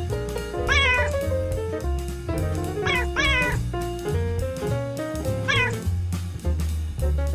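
Background music with a cat meowing three times over it, at about one, three and five and a half seconds in. Each meow rises and then falls in pitch.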